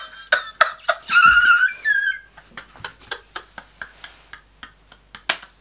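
A man's hysterical laughter: a high-pitched squeal about a second in, then a row of short, breathy, wheezing gasps.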